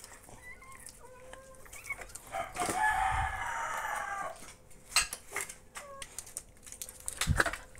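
A rooster crowing once, one long call of about two seconds, followed by a couple of sharp knocks.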